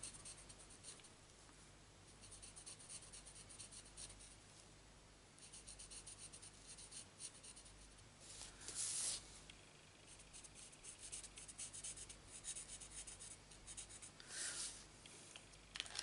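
Stampin' Blends alcohol marker tip rubbing on cardstock: faint, quick scratchy strokes while small areas are coloured in, with a louder swish about halfway through and another near the end.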